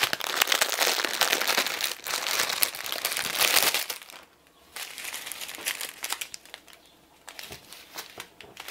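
Thin plastic packaging crinkling as strips of small bags of diamond-painting drills are handled. Dense crackling for about four seconds, a short lull, then softer, sparser crinkling.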